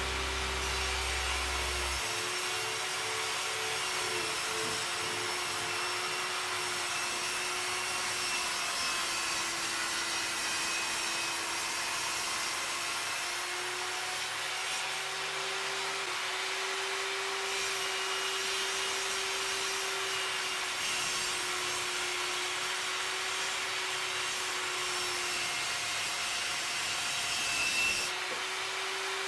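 Table saw running steadily while ripping strips of wood. Its hum wavers slightly in pitch as the wood is fed through the blade.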